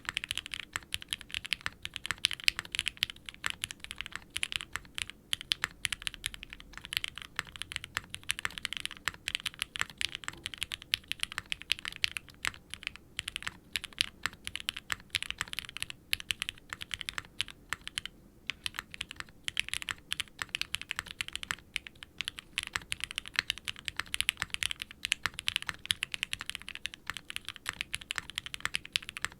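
Fast continuous typing on a custom 60% mechanical keyboard (Qwertykeys QK60 R3) with Gateron frankenswitch linears, a carbon fibre plate and GMK double-shot ABS keycaps, giving a soft, muted clack on each bottom-out. The keystrokes run in a dense stream with a brief pause about two-thirds of the way through.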